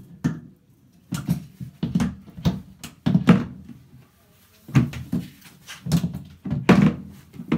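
Irregular knocks and thumps of a white wall-hung bathroom cabinet being shifted by hand and settled on its hanging hooks, knocking against the tiled wall. There are about a dozen, the loudest about three seconds in and again near the end.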